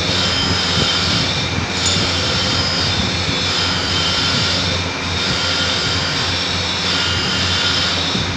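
Machine-shop machinery running steadily: a dense mechanical hum with a low drone and a thin high whine that eases off and comes back about every three seconds.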